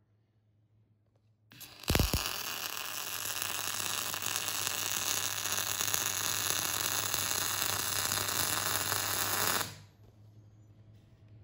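MIG (GMAW) welding arc on structural steel: a steady, dense crackling hiss that starts sharply at the arc strike about one and a half seconds in, runs for about eight seconds as a bead is laid, and cuts off suddenly when the trigger is released.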